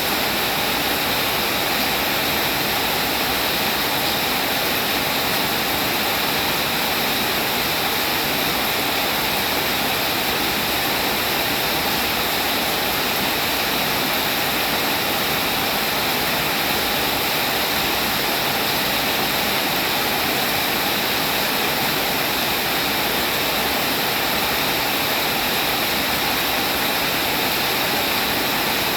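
Steady rain falling, a constant even hiss with no breaks or individual drops standing out.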